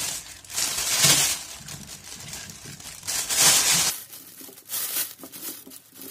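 Plastic roasting sleeve crinkling and rustling in several bursts as hands push potato wedges and apple pieces into it. The loudest bursts come about a second in and again after about three seconds.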